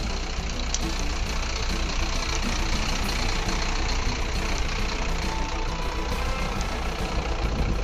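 Vehicle engine idling steadily under a constant hiss of outdoor noise.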